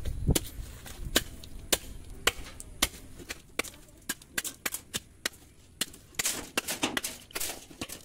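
A curved hand-forged chopping blade (daw) hacking the fibrous roots off a bamboo root stump: a series of sharp chopping strikes, about two a second at first, coming quicker and in clusters about halfway through.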